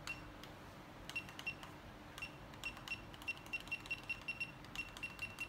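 Digital kitchen timer beeping with each button press as it is set to 40 minutes. Short, high, identical beeps with a click on each: a few scattered ones at first, then about four a second from about two and a half seconds in as the button is pressed repeatedly to count up the minutes.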